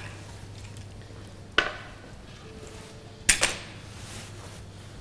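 Kitchen dishes and utensils knocking on a counter: two sharp clatters, about one and a half seconds in and again near three and a half seconds in, over a low steady hum.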